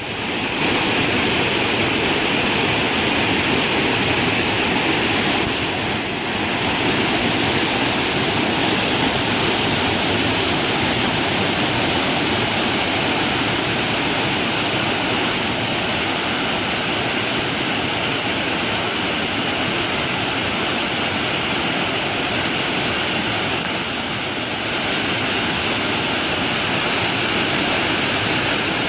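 Loud, steady rush of water pouring down a waterfall.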